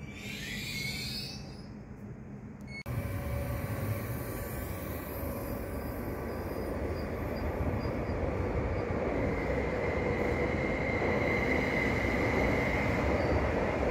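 Electric trains at a station platform. In the first second or so a short rising electric whine sounds, then there is a sudden change about three seconds in. From there a Koleje Mazowieckie Stadler FLIRT electric multiple unit runs along the platform, its noise growing louder, with a steady high whine from about nine seconds in.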